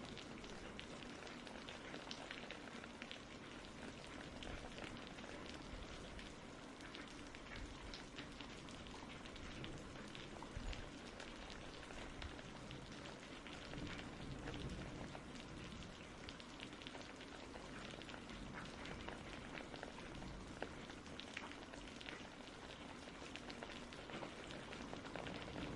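Steady rain falling on a surface, an even hiss full of small drop ticks.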